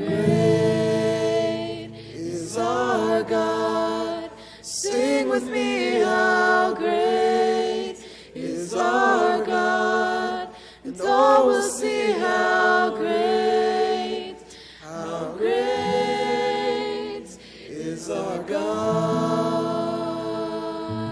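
A group of young men and women singing a worship song into microphones, in phrases of long held notes with short breaths between. There is little or no guitar behind the voices.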